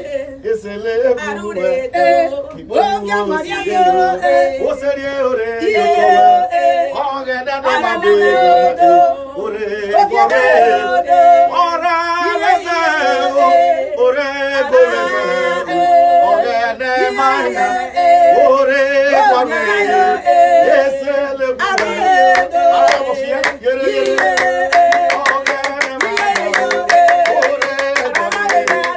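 Male and female voices singing a gospel song together. Hand clapping joins in near the end, in a quick, steady rhythm.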